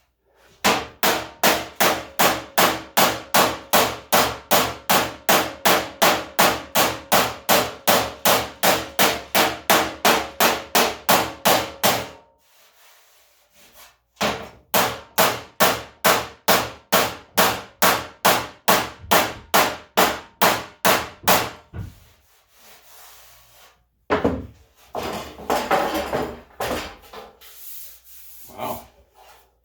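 Hammer tapping dents out of the steel front fender of a 1978 Ford F100: quick, even, ringing blows about three a second in two long runs, with a short pause between. Near the end, scattered rubbing and scraping on the panel.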